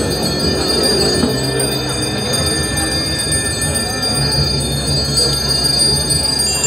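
Bells ringing continuously with a steady metallic jingle, over the busy murmur of a crowd.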